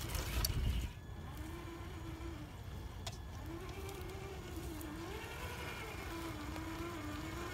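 Electric motor and gear whine of a Traxxas TRX-4 Defender RC crawler, rising and falling in pitch with the throttle as it crawls over rocks. A low rumble fills the first second.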